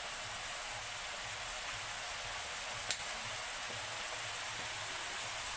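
Sliced mushrooms sizzling in melted butter in a steel wok, a steady hiss, with a single sharp click about three seconds in.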